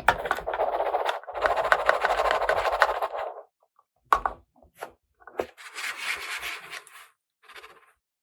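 Plastic toy pieces and packaging being handled: two long stretches of scratchy rubbing and rustling, then a few sharp clicks and more short rustles.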